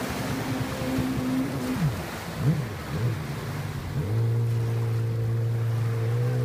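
A jet ski's engine droning over the surf, its pitch swinging quickly up and down as it speeds across the waves, then holding steady from about four seconds in; waves wash in underneath.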